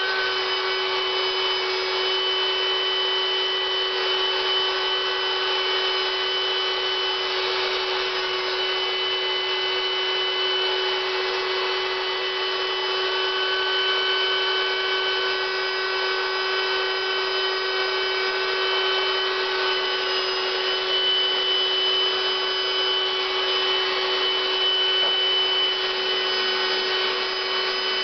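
An electric air blower runs steadily with a constant hum and a few steady higher whining tones, inflating a latex inflatable suit.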